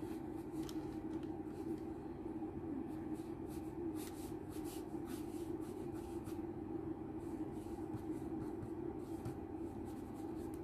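Black drawing pen scratching on paper in quick, short strokes as fur lines are inked, over a steady low hum.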